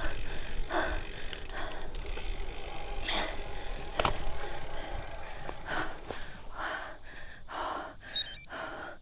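A cyclist breathing hard, repeated heavy breaths about one a second, coming closer together in the second half: out of breath from a hard race effort.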